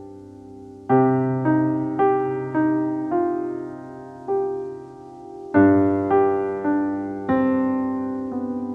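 Piano music: a slow melody of single struck notes, each dying away, over low chords struck about a second in and again just past halfway.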